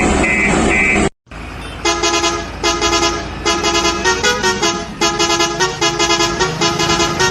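About a second of vehicle engine noise with a regular beeping, then after a brief cut a vehicle horn honks in a string of short blasts, some at different pitches like a tune.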